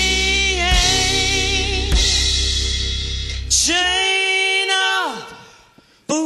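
Live blues band with a singer, drums and held notes. The band stops about four seconds in, a last held note swells and then fades out, and after a brief hush a new sustained tone starts near the end.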